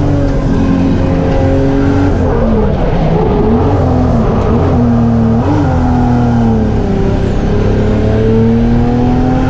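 Drift car's engine at high revs on track, its pitch dipping and rising several times between about two and six seconds in as the throttle is worked, then climbing steadily again.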